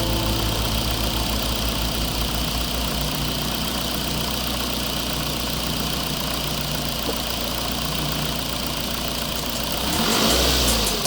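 Steady, low, idle-like engine drone of an RC construction truck, with a louder rushing swell near the end.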